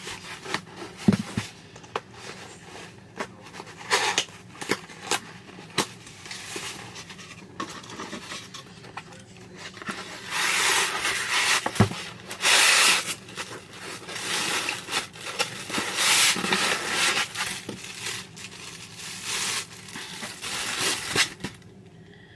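Hands opening a small cardboard box and handling its packaging: rustling, crinkling and tearing, with scattered clicks and knocks. The rustling is loudest in stretches about ten to thirteen seconds in, around sixteen seconds, and again near the end.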